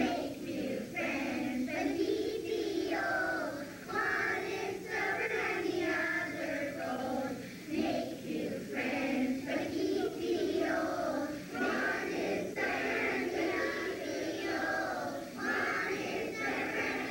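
A children's choir singing in phrases, from an old VHS tape recording, with a brief loud click at the very start.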